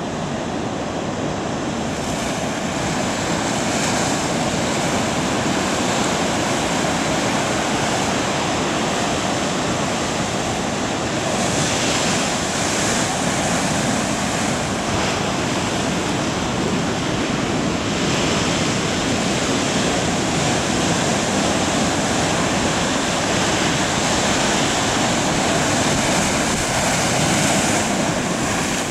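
Heavy ocean surf: a steady, continuous rush of large waves breaking.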